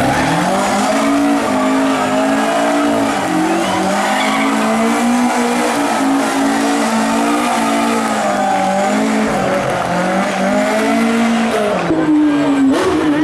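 Ford Escort Mk2 rally car spinning donuts: its engine held at high revs, the pitch wavering up and down as the car rotates, over continuous tyre squeal and skidding. Near the end the sound cuts to another rally car's engine.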